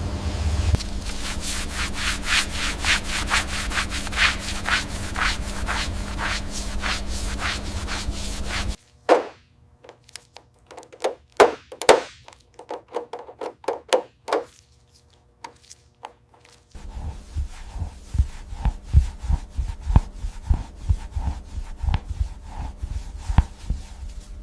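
Rhythmic rubbing strokes on a surface, about two or three a second, over a steady low hum. The sound cuts off abruptly partway through. Scattered sharp clicks and ticks follow, then a run of soft taps and knocks.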